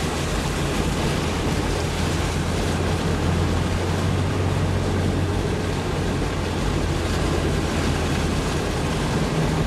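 Small car's engine running steadily while driving across a flooded low-level bridge, with the rush of floodwater around it.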